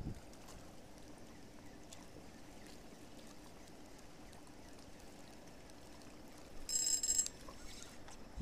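Faint water lapping against the shore, with a brief high-pitched metallic rattle lasting about half a second about seven seconds in.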